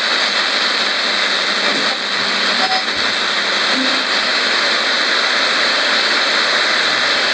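Static hiss from an old portable radio as its tuning dial is turned by hand between stations, with a faint steady high whistle. A couple of short blips of station sound come through about three seconds in.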